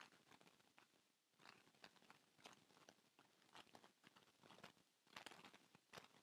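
Near silence with faint, irregular clicks and crackles, bunched more closely about five seconds in.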